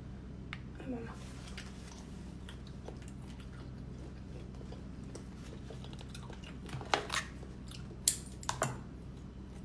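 Kitchen scissors snipping raw geoduck meat, a few sharp snips in the last three seconds, after quieter handling of the clam, over a steady low hum.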